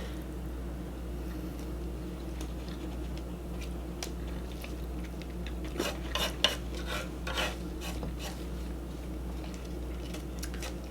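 Utensils clinking and scraping against a dish while eating, a cluster of sharp clicks about six to seven and a half seconds in, over a steady low hum.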